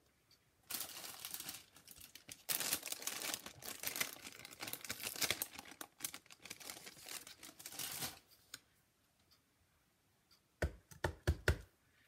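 Clear plastic packaging sleeve crinkling and rustling as it is handled, for several seconds. Near the end, a quick run of a few low knocks as a clear acrylic stamp block is set down and pressed onto paper.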